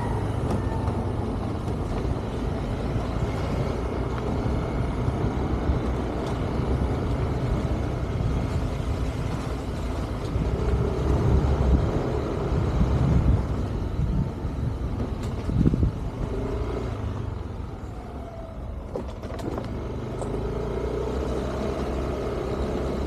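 Motorbike running with a steady low rumble while it is ridden, the engine note rising and falling now and then, with wind noise on the microphone.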